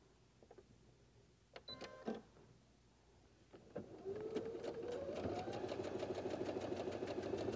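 Electric sewing machine stitching a seam through quilt patchwork: a few light clicks, then about halfway in the motor starts with a rising whine as it speeds up and settles into fast, even stitching.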